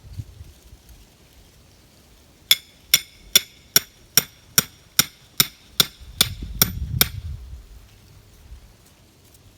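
A hammer driving a stake into the ground to make a hole for a corn stalk: about a dozen even, ringing blows, roughly two and a half a second, starting a couple of seconds in and stopping about two seconds before the end.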